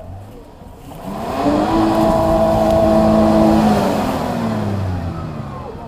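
An off-road 4x4's engine revving up, holding high revs for about two seconds, then easing off with the pitch falling away.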